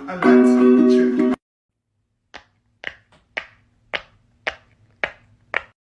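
Ukulele music that cuts off about a second in; after a short silence, seven sharp taps in an even run, about two a second.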